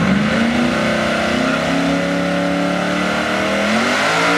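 Chevrolet Silverado pickup's engine revved up and held at high revs during a burnout, with the rear tyres spinning on the line; the revs ease off near the end.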